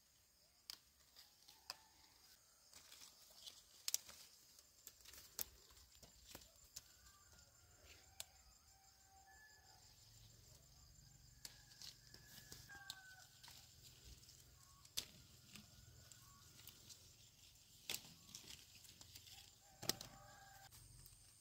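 Quiet hand-picking of small green jujubes: scattered sharp snaps of fruit stems breaking and twigs and leaves rustling, with the fruit knocking together in a woven bamboo basket near the end. Faint bird calls come through now and then.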